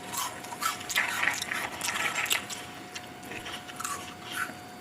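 A person chewing and biting food close to the microphone: irregular, short mouth and food sounds.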